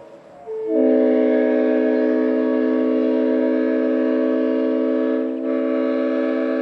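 Leslie RS5T five-chime train horn sounding a long blast. One note speaks about half a second in, the rest of the chord joins a moment later, and it holds steady with a brief dip about five seconds in.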